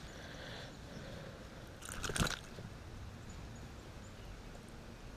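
A single short crunch of creek gravel about two seconds in, like a step or shift of weight on the loose stones, over a faint outdoor background.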